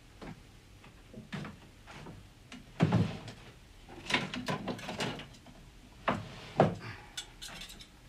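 A series of knocks and clicks: a kitchen drawer being worked, with a heavier thump about three seconds in and a cluster of sharp metal clinks about four seconds in as knives are taken out, then two duller thumps.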